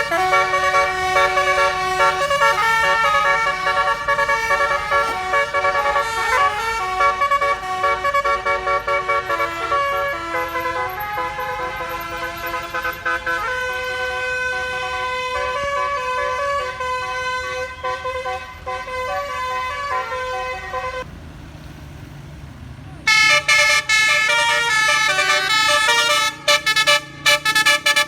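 Bus's basuri telolet air horn playing a melody, its notes stepping up and down in pitch. It drops away for about two seconds past the twentieth second, then returns with a few short blasts near the end.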